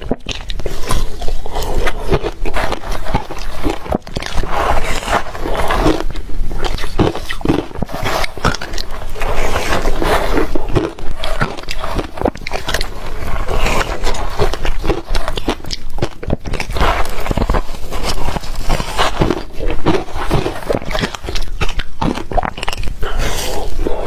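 A person biting and chewing ice close to the microphone: a continuous run of loud, irregular crunches and cracking.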